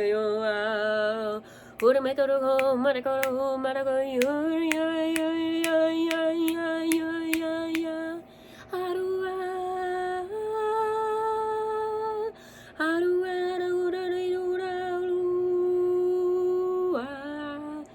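A woman's voice toning in long, held hummed and sung notes. The notes have a slight waver and step to a new pitch every two to four seconds, with brief breaths between them. A run of light, evenly spaced ticks sounds behind the notes during the first several seconds.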